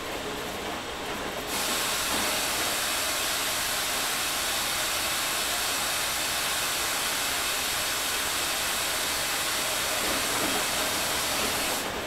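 Front-loading washing machine mid-wash, the drum tumbling wet laundry, with a steady hiss of water rushing in that switches on about a second and a half in and cuts off suddenly near the end.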